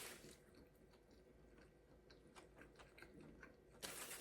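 Faint chewing of a short rib burrito, with soft scattered ticks from the mouth. A louder rustle starts near the end.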